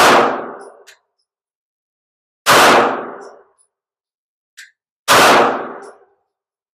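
Canik TP9DA 9mm pistol fired three times, slow aimed shots about two and a half seconds apart, each shot ringing out and fading over most of a second.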